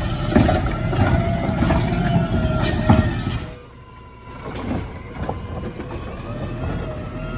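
Heil Rapid Rail automated side-loader garbage truck running, its engine and arm hydraulics going, with sharp clanks as the arm handles a cart. About three and a half seconds in the level drops suddenly, and the truck then runs more quietly with a faint whine as the arm reaches out to grip the next cart.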